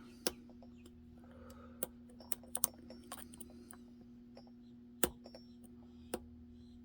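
Lock pick and tension tool working the pins of an ASSA Twin 6K lock: small irregular metallic clicks and taps, with a sharper click about five seconds in and another near the end. A faint steady hum runs underneath.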